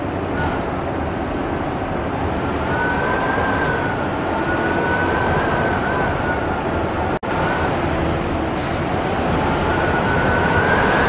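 Strong gusting wind blowing hard across the microphone with a loud, steady rush. A faint, wavering high whistle rides over it. The sound cuts out for an instant about seven seconds in.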